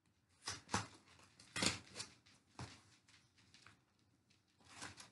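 Scissors snipping open a shipping package: several short, separate cuts with a little rustling, the loudest about a second and a half in and a quick cluster just before the end.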